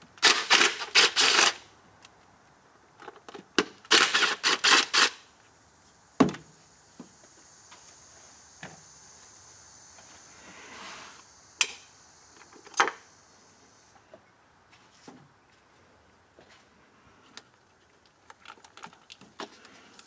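Cordless power driver run in two short bursts of rapid clicking, about a second each, undoing the mounting bolts of the 8.1 Vortec V8's number 6 ignition coil. Then a few single clicks and knocks as tools and parts are handled.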